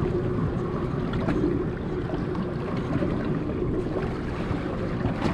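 Fishing boat's engine running steadily, with wind and water noise.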